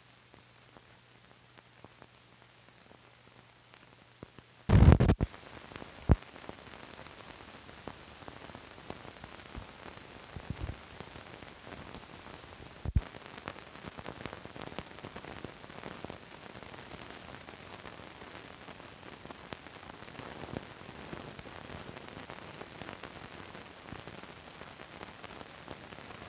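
Noise from an old film soundtrack with no programme sound: at first only a faint low hum, then a loud thump about five seconds in, followed by steady crackling hiss and scattered pops.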